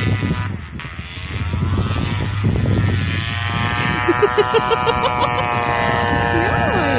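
Engine running with its pitch falling and its level dipping about half a second in, then climbing steadily over the next few seconds and holding high.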